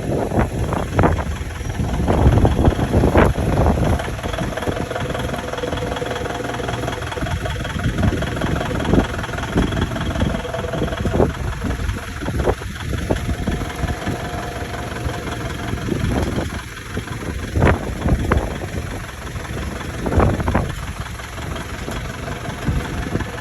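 A vehicle engine running steadily, with a few sharp knocks and clanks, heard while a bulk bag of sand is loaded.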